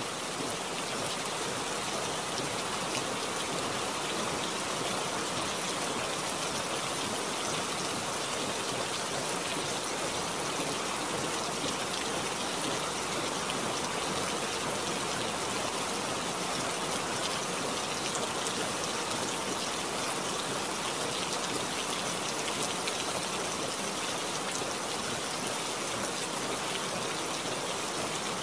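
Steady rain: an even hiss of falling rain with fine drop sounds, at a constant level.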